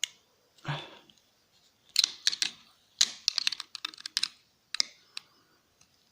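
A metal screwdriver tip clicking and tapping against the small metal parts of a laptop hard drive while prying at a stuck part. The clicks come in quick clusters of sharp ticks about two and three seconds in, with a few single clicks near the end.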